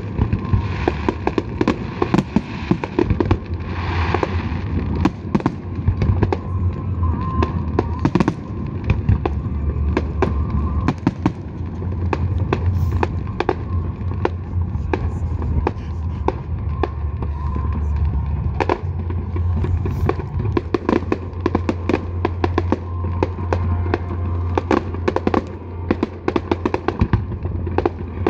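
Large fireworks display going off: a dense, irregular run of sharp bangs and crackling shell bursts over a continuous low rumble.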